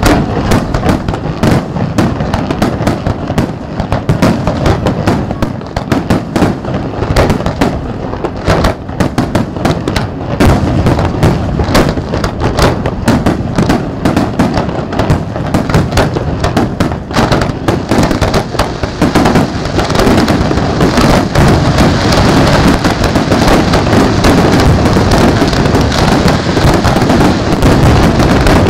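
Aerial firework shells bursting in quick succession, a dense run of bangs that thickens after about two-thirds of the way in into a near-continuous, louder barrage.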